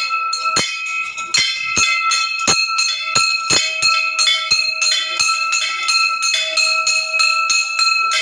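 Temple bell being rung repeatedly, about two or three strikes a second, its ringing tones running on and overlapping from one strike to the next.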